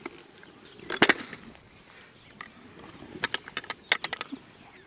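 Pressure cooker tipped over and its charred, burning matchboxes spilling onto the ground: sharp clicks and light knocks, one loud one about a second in and a quick cluster around three to four seconds in.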